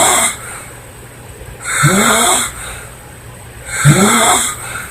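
A woman snoring loudly, a short snore about every two seconds. Each snore starts low and rises in pitch.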